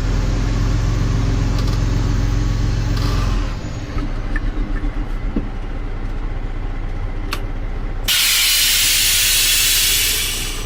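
Freightliner tandem dump truck's diesel engine running steadily, heard from the cab; about three and a half seconds in its note changes and it settles into a lumpier, pulsing run. About eight seconds in, compressed air hisses out loudly for about two seconds.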